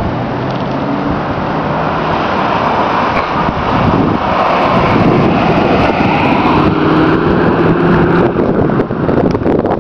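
A motor vehicle's engine running close by, with a steady hum under a noisy rush. It grows louder about halfway through and eases off near the end.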